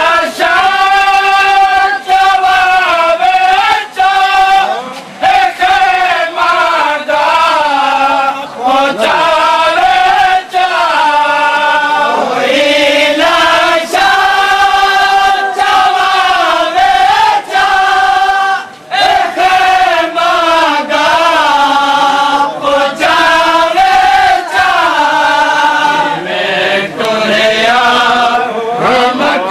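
Male voice chanting a nauha, a Shia mourning lament, in long drawn-out melodic phrases with short breaks between them.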